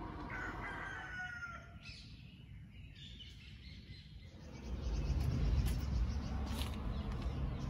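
A rooster crows once, a call of about a second that falls in pitch at the end, near the start. About five seconds in, a louder low rumble takes over.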